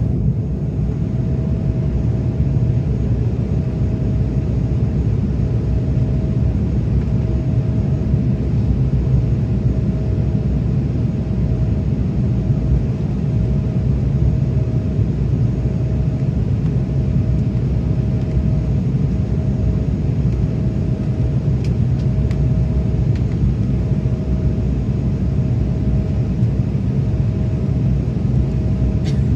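Airliner cabin noise during descent: the steady, loud rumble of the engines and rushing air, with a steady mid-pitched tone that pulses gently and a few faint ticks in the last third.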